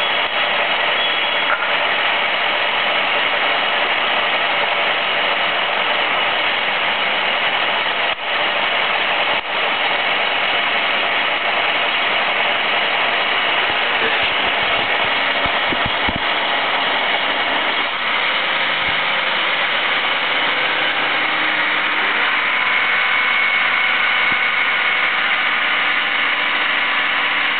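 A nearby engine running steadily, a constant mechanical drone with no change in speed.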